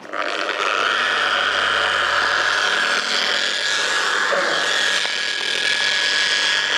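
Corded Draper Storm Force dual action polisher switched on and running steadily with a whine, its pad buffing polish into a car's paintwork.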